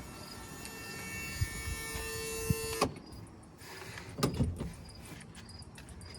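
A small electric motor whirs steadily for about three seconds, then stops abruptly with a clunk; a couple of knocks follow a little later. Crickets chirp faintly throughout.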